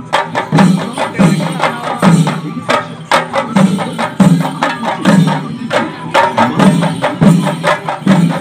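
Drums accompanying a pulikali tiger dance, beaten in a fast, steady rhythm: a deep stroke about every two-thirds of a second under quicker sharp strokes.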